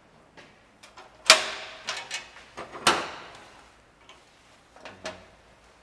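Metal clicks and clanks as brass flare fittings and copper tubing are handled and fitted together on a sheet-metal bench. Two louder clanks ring on briefly, one about a second in and one about three seconds in, with lighter clicks around them.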